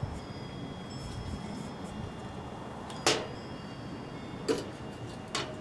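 A few sharp clinks with a short metallic ring, one about three seconds in and two more near the end, as a metal can and small hand tools are set down and picked up on a table, over a steady low hiss.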